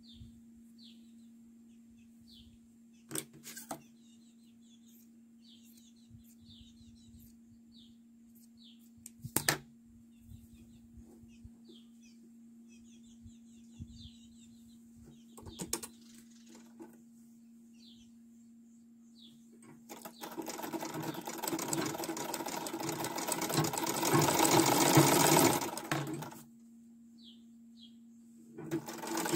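Gloria sewing machine stitching a sleeve hem: it runs for about six seconds, getting louder as it speeds up, stops, then starts again near the end. Before that the fabric is being handled, with a few clicks, while a small bird chirps repeatedly over a steady low hum.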